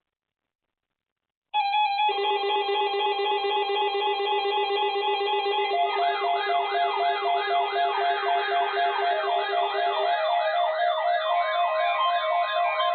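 Layered electronic siren and alarm tones: steady pulsing beeps start suddenly about a second and a half in, and a fast rising-and-falling yelp siren joins about halfway through, cycling about twice a second.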